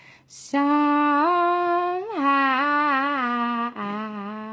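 A woman humming a slow, wordless melody a cappella, holding a few long notes with a slight waver. A quick breath in comes just before the humming starts.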